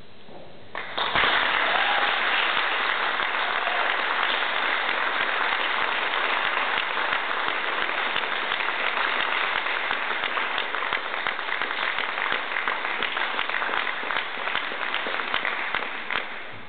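Audience applauding. It starts suddenly about a second in, holds steady and dies away near the end.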